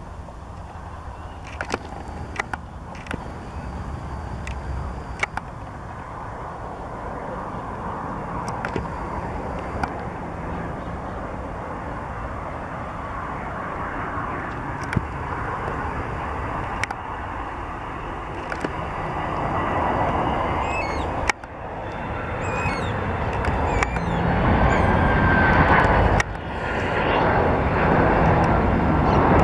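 Boeing 767-300ER freighter's twin turbofan jet engines on landing approach: a broad jet rumble growing steadily louder as the plane comes closer.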